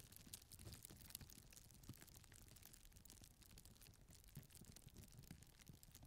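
Faint plastic bag being scrunched: a dense, irregular run of small crinkles and crackles.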